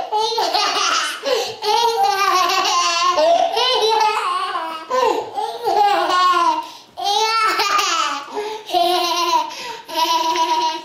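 A toddler laughing hard in long, high-pitched peals, with a held squeal near the end.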